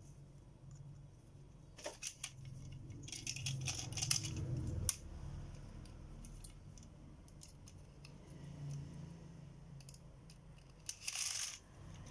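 Plastic Beyblade launcher parts being handled: a few sharp clicks, then a stretch of clicking and rattling, and a short scrape near the end as a yellow ripcord is worked into a red launcher.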